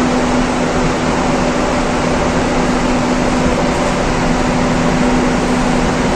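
Kruger commercial axial exhaust fan running steadily at speed: a constant rush of moving air with a steady hum.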